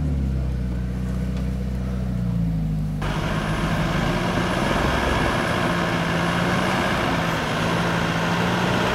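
Off-road 4x4 engines: one pulls steadily under throttle, then an abrupt cut about three seconds in brings a second vehicle's engine running, with more hiss over it.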